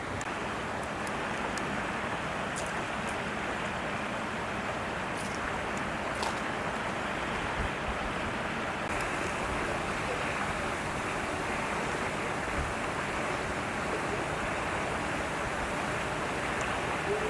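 Steady rushing of strong wind, an even noise that holds at one level throughout, with a few faint high ticks in the first few seconds.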